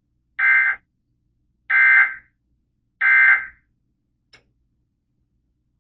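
Emergency Alert System end-of-message code on NOAA Weather Radio: three short bursts of two-tone digital data about 1.3 seconds apart, signalling the end of the broadcast warning. A faint click follows a second after the last burst.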